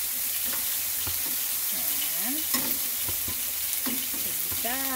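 Sliced onions, garlic and vegetable strips sizzling as they sauté in oil in a stainless steel pan, stirred with a metal spoon that clicks and scrapes against the pan.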